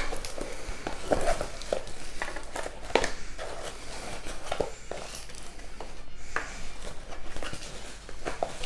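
Tiny plastic novelty hands rubbing and handling a rolled diamond-painting canvas to flatten it, making scattered clicks, taps and rustles.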